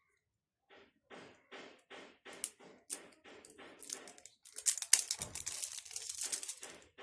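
Plastic packaging being handled and opened: a run of regular rustling strokes, two or three a second, then about four and a half seconds in a louder, denser crackling and tearing of the plastic.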